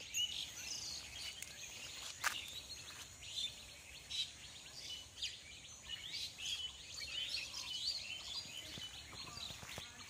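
Small birds chirping: many short, high calls overlapping. One sharp click comes a little after two seconds in.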